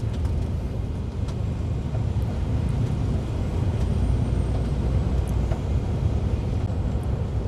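Steady low rumble of a moving lorry heard from inside its cab, its engine and tyres running on a wet road, with a few faint clicks.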